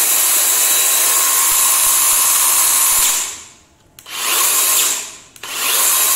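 Makita DUC252 36-volt cordless chainsaw running with no load, its motor and chain spinning at a steady high speed. It spins down about three seconds in, runs again briefly about a second later, spins down again, then starts once more about five and a half seconds in.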